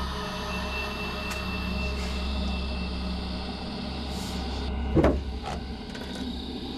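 A steady low hum with several faint steady tones over it. About five seconds in comes a single loud clunk, followed half a second later by a lighter click.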